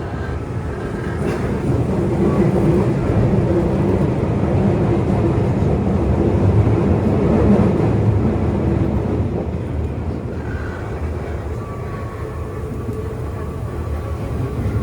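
Electric train running on the rails. Its rumble swells to a peak about halfway through, then eases off, with a faint steady whine toward the end.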